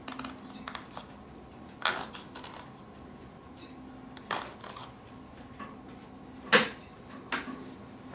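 Scattered plastic clicks and taps from a snowmobile handguard mirror being handled and turned on its mount, about seven short knocks, the loudest about six and a half seconds in, over a faint steady hum.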